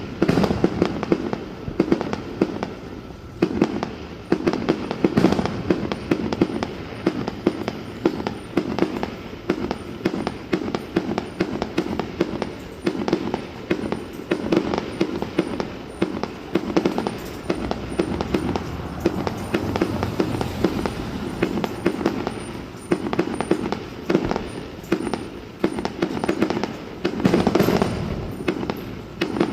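Aerial fireworks going off in rapid, continuous succession, a steady stream of bangs and crackling pops. A louder, denser volley comes near the end.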